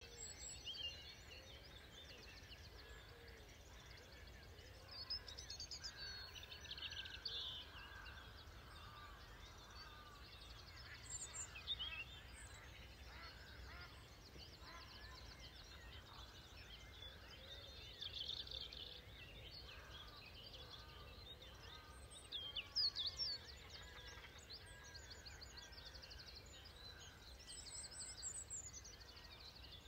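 Faint dawn birdsong from several small birds: rapid trills and chirps that come and go, with a louder burst of sharp chirps about two-thirds of the way through, over a steady low rumble.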